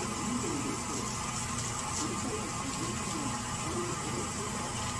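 Steady background hiss and hum, with faint, distant talk underneath.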